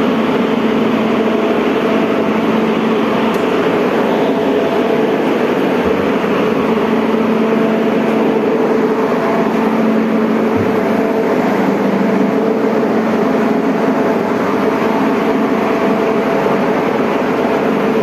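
York centrifugal chiller running: a loud, steady machine hum with several steady tones over a broad rush of noise.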